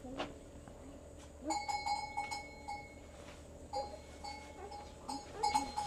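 A livestock bell clanking in irregular clusters of strikes, starting about a second and a half in, pausing briefly, then clanking again through the second half.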